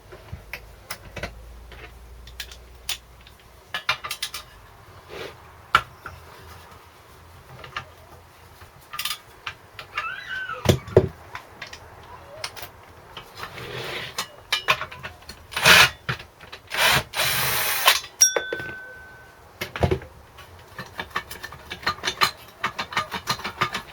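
Clicks and knocks of hand tools and metal parts being handled, with a few short runs of a small cordless drill undoing the bolts of a small engine's muffler; the longest run lasts just over a second, about two-thirds of the way through.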